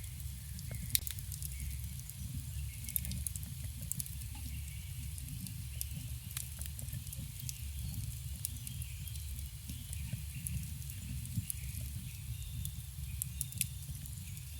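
Campfire burning: irregular sharp crackles and pops of the wood over a steady low rumble of the flames.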